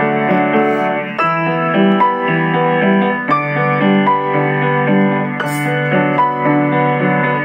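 Keyboard music: several notes sounding together, with new notes struck every fraction of a second.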